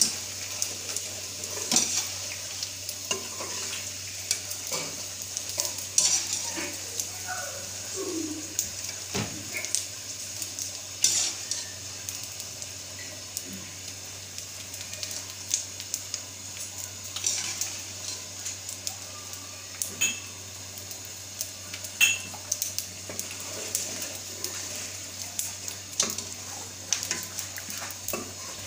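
Chinese crackers frying in hot ghee in an aluminium karahi, a steady sizzle, with a wire-mesh skimmer clinking and scraping against the pan's metal side at irregular moments as they are stirred and lifted out.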